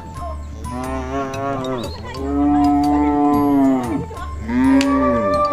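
A cow mooing three times in a row, each a long call that rises and falls in pitch.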